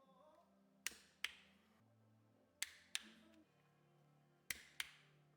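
Sharp clicks, mostly in close pairs about every second and a half, over faint low held notes of background music.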